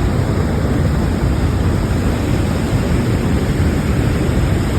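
Niagara Falls: a loud, steady rush of falling water, heaviest in the low end.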